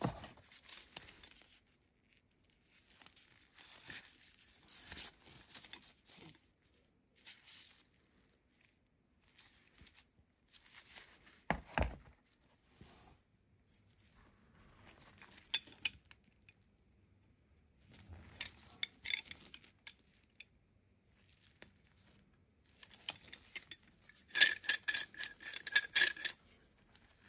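An old Record No. 6 cast-iron G clamp being handled: light metallic clinks and knocks as it is picked up, moved and set down. Near the end its threaded steel spindle is wound through the frame, giving a quick run of small clicks.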